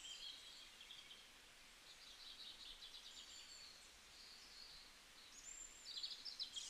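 Faint birdsong: short chirps and trills from small birds in several separate phrases, the loudest near the end.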